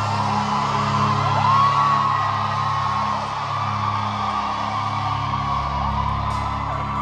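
Live gospel worship music from a band, holding steady sustained chords, with a voice sliding up in pitch about a second and a half in.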